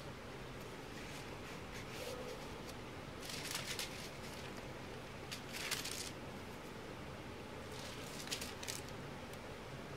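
Paper and card stock rustling as the flaps of a handmade greeting card are handled, in three short bursts a few seconds in, near the middle and near the end, over a steady low hiss.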